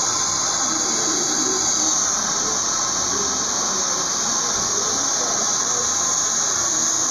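Handheld hair dryer running steadily while blow-drying wet hair: a constant airy hiss that does not change in level.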